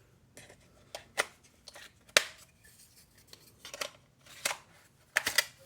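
Irregular sharp clicks and snaps, about eight in all, with the loudest about two seconds in and a quick double snap near the end. These are the sounds of small hard parts being handled, as a battery is fitted to the RC car or its controller.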